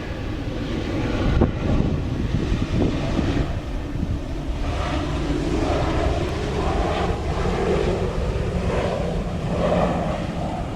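An airliner's engines giving a steady rumble, with wind buffeting the microphone.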